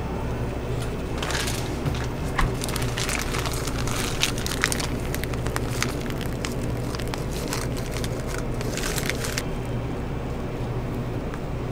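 Crackling and small sharp clicks as a crepe is worked with a metal spatula and a squeezed piping bag of whipped cream, starting about a second in and stopping near the end. A steady low hum of equipment runs underneath.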